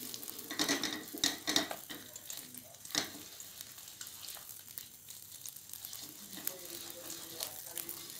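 Wooden spatula stirring and scraping thick cooked cashew dough around a non-stick kadai, in uneven strokes that are busiest in the first three seconds, with a sharper knock about three seconds in. A faint sizzle of ghee in the pan runs under it.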